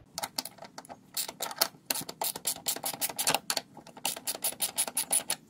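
Ratchet wrench with a 10 mm socket clicking rapidly in short runs, several clicks a second, as it backs out an upper shroud bolt.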